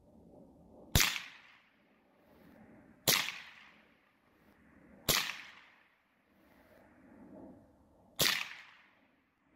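Four sharp rifle shots from a scoped rifle, the first three about two seconds apart and the last after a three-second gap, each a short crack that fades quickly.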